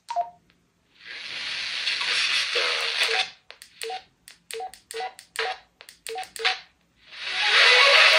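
Baofeng UV-5R handheld radio: about two seconds of static hiss from its speaker, then a run of about eight short beeps as its keypad buttons are pressed, and a second, louder burst of static near the end.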